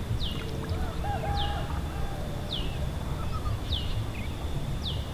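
A bird calling a short falling whistle five times, about once a second in a steady rhythm, over a low steady rumble.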